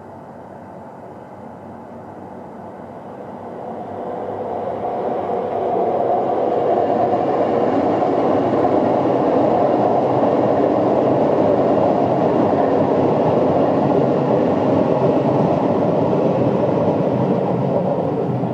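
Airbus A340-300's four CFM56 turbofan engines spooling up for takeoff. The jet rumble swells sharply a few seconds in, then holds loud and steady at takeoff thrust.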